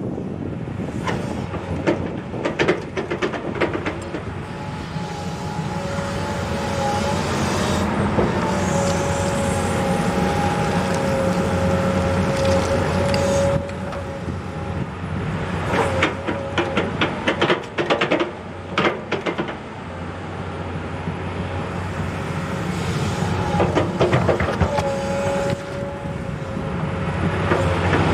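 Komatsu hydraulic excavator working a ditch: the diesel engine runs steadily under load with a high hydraulic whine that shifts in pitch as the boom and bucket move. Clusters of clanks and scrapes come from the bucket digging into the soil, most about halfway through and again near the end.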